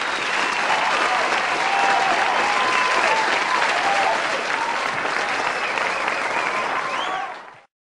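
A crowd applauding and cheering, with voices calling out over the clapping; it cuts off abruptly near the end.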